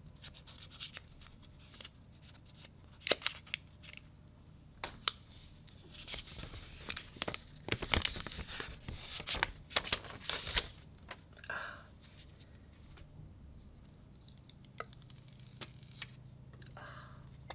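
Plastic protective film being peeled and torn off a new smartphone, with crackling tears and rustling. The peeling is densest about six to ten and a half seconds in.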